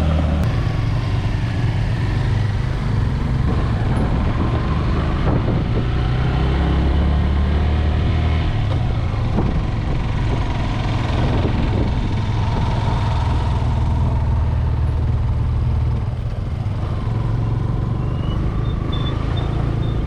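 Motorcycle engine running while riding, its low note shifting a few times, over steady road and wind noise.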